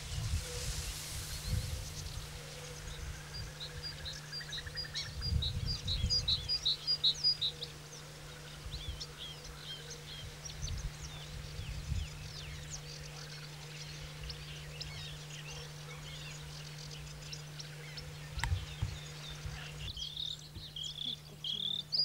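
Bluethroat singing: rapid, repeated high chirping phrases and trills, growing louder after about twenty seconds. Low rumbling runs under the song in the first several seconds.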